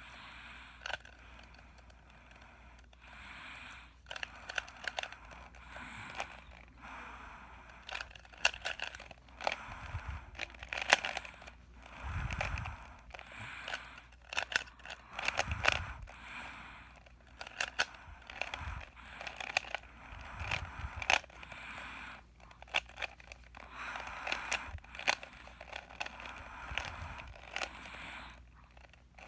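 3x3 speed cube being turned by hand: irregular bursts of quick clicks and plastic scraping as the layers rotate, with brief pauses between bursts.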